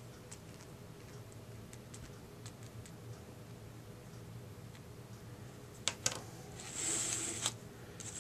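Faint handling of plastic crafting items: a few light ticks, then two sharp plastic clicks about six seconds in and a short scraping hiss as the clear plastic stamp case and the bleach bottle are moved on the work mat.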